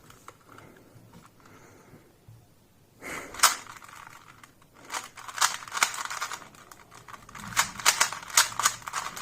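2x2 Rubik's cube being turned fast in a speedsolve: quick, irregular plastic clicks and clacks of the layers turning, starting about three seconds in and getting denser near the end.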